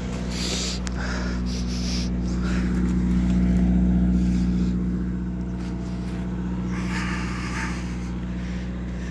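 Vauxhall Astra 1.7 CDTi four-cylinder diesel running steadily at raised revs, held up by a throttle stop, heard at the tailpipe. It is partway through a stationary DPF regeneration that is not bringing the DPF up to temperature. Louder for a moment about three to four seconds in.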